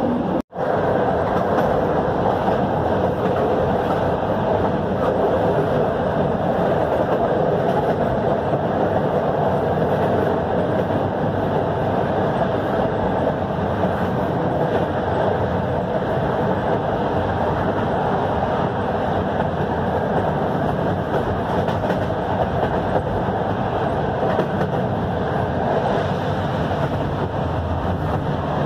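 Train running along the line, heard from inside the carriage as a steady rumble of wheels and running gear. The sound drops out for an instant about half a second in.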